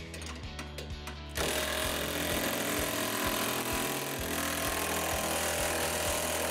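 Cordless impact driver hammering as it tightens a nut onto a bolt. It starts suddenly about a second and a half in and runs steadily. Background music plays underneath.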